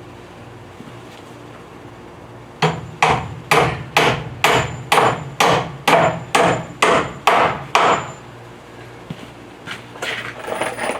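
Hammer driving a nail into wood framing lumber: about a dozen even strikes, roughly two a second, that stop after about five seconds. Some lighter clatter follows near the end.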